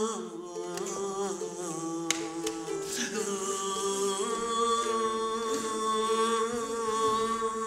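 Several voices humming long sustained notes together in a close chord. The pitches slide and shift during the first few seconds, then hold steady. A single sharp click comes about two seconds in.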